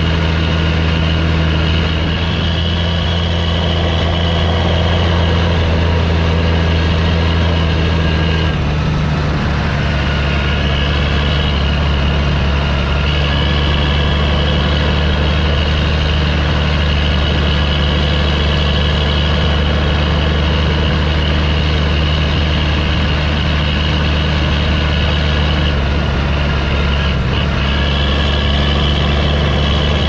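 Fendt 930 Vario TMS tractor's six-cylinder diesel running steadily while pulling a full grass wagon, with a turbo whistle over the engine note. About eight seconds in the engine speed drops slightly and the whistle dips, then rises again.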